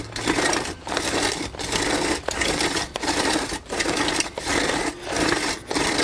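Post hole reamer's scraper blades scraping soil from the sides of an 8-inch post hole as the reamer is turned, widening the hole to 12 inches. A gritty scrape in a steady rhythm, with short breaks about every three quarters of a second.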